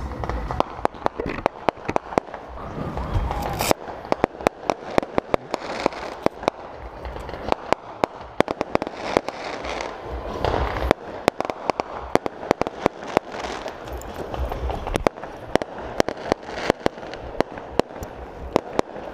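Aerial fireworks going off overhead: an irregular run of sharp bangs and crackling pops, several a second.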